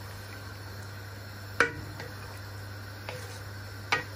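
Wooden spoon stirring chicken and potato curry in an aluminium pot, knocking against the pot with two sharp clacks, about a second and a half in and near the end, and a fainter one between. A steady low hum runs underneath.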